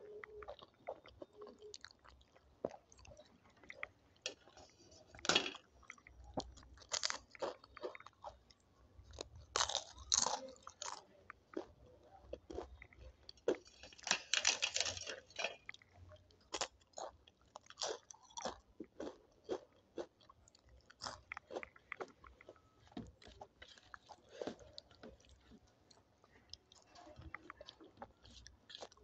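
A person chewing a meal of dal, rice, papad and salad close to the microphone, with repeated short crunchy bites. The loudest, densest crunching comes about ten seconds and again about fifteen seconds in.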